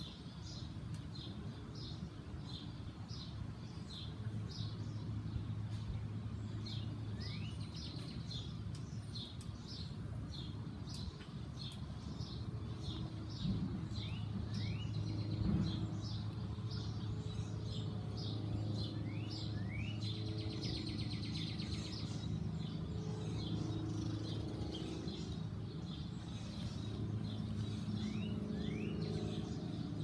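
Small backyard birds chirping, a steady run of short high chirps with a few quick rising notes and a brief buzzy trill about two-thirds of the way through. A steady low hum, like a distant engine or machine, runs underneath and grows stronger about halfway in.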